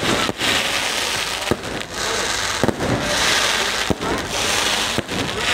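Fireworks going off in a dense barrage: a continuous crackling and hissing of many rockets, with sharp bangs scattered throughout.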